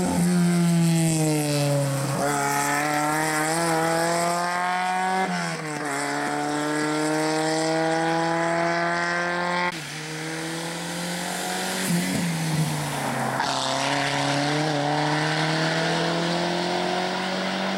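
Rally car engines revving hard under full acceleration as cars drive one after another along a tarmac stage, the pitch climbing steadily and dropping sharply at each gear change, several times.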